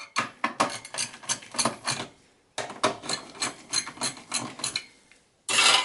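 A long Phillips screwdriver turning out CPU heatsink screws, making a run of clicks a few times a second. The clicks stop twice for a moment, and there is a louder scrape or clatter near the end.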